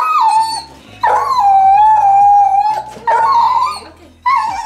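A dog howling in several long, drawn-out howls. The longest is held steady for nearly two seconds; others step up and waver in pitch.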